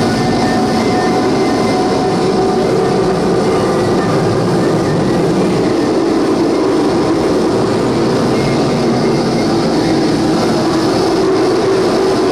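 Harsh noise music played live: a loud, dense, unbroken wall of distorted noise, heaviest low down, with faint held tones inside it.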